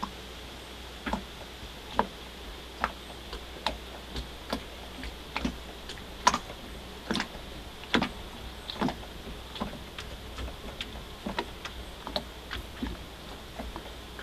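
Irregular sharp clicks or ticks, roughly two a second, the loudest a little past the middle, over a faint steady high hiss.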